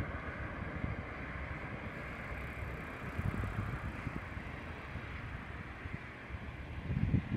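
Wind buffeting the microphone in irregular low rumbling gusts, stronger near the end, over a steady outdoor hiss.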